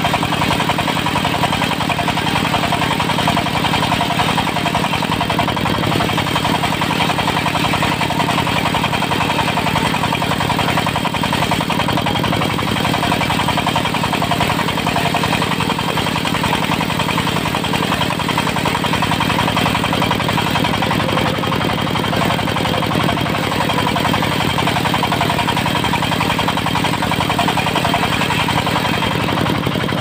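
Portable diesel-powered circular sawmill ripping a teak log: the engine runs steadily under load while the large saw blade cuts along the wood. The sound stays even and unbroken throughout.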